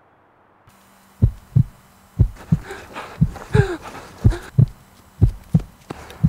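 Heartbeat sound effect: pairs of low lub-dub thumps about once a second, starting about a second in. Breathy gasps come between the beats over a steady low hum.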